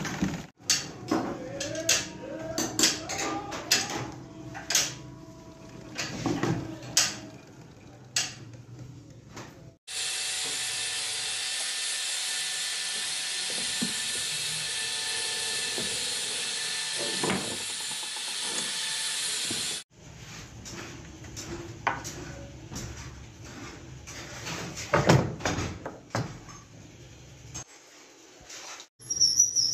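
Clicks and light metal knocks of parts on a Shoukat sewing machine as it is assembled and adjusted by hand. Midway they are broken by about ten seconds of a steady hiss that starts and stops abruptly.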